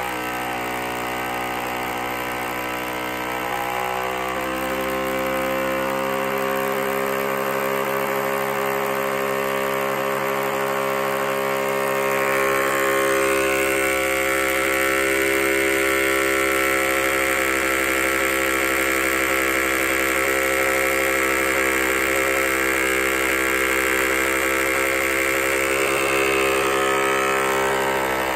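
Krups Hopsy SUB beer dispenser making a horrible noise: a loud, steady mechanical hum of several tones. About twelve seconds in it grows louder and a harsh higher whine joins it. It is a fault noise that only stops when the unit is power-cycled.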